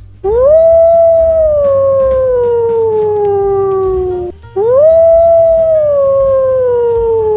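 Two long canine howls, one after the other with a short break about four seconds in; each rises quickly and then slides slowly down in pitch.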